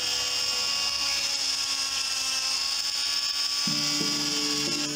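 Electric cast saw running with a steady high-pitched whine as it cuts open a cast on a calf's leg.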